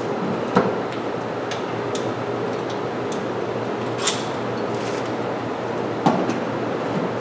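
A few sharp knocks and clicks of workshop handling, about half a second in, near four seconds and near six seconds, over a steady low hum.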